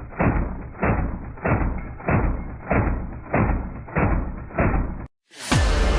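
Music intro: a slow, steady beat of heavy, muffled drum hits, a little under two a second. About five seconds in it cuts off for a moment, and then a loud cinematic impact comes in with a falling boom.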